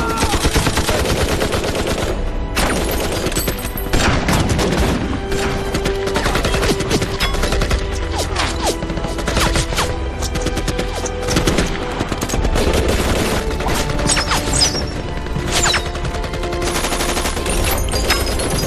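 Continuous volleys of rifle and machine-gun fire, shots crowding one another without a break, from a war film's battle soundtrack.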